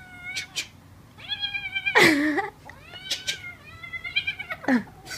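Kitten meowing again and again in long, drawn-out cries, the loudest and harshest one about two seconds in. A few sharp clicks come between the cries.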